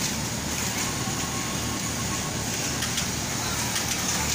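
Electric rib-cutter machine running steadily: a constant low motor hum under an even rushing noise as its feed rollers and round blade turn.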